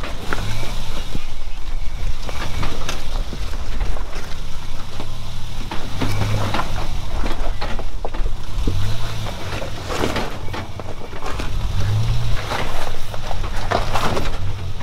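A 4WD vehicle's engine running at low speed, its low note swelling every few seconds, with scattered knocks and rattles.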